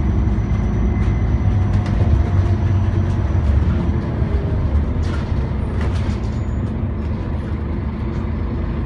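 Scania Omnicity bus's diesel engine and drivetrain heard from inside the passenger cabin as the bus drives along, a steady low rumble that eases a little about halfway through, with occasional light clicks.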